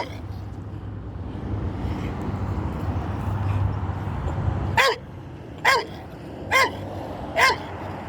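A steady low rumble, like a vehicle going past, that cuts off about five seconds in, followed by four short animal calls evenly spaced less than a second apart.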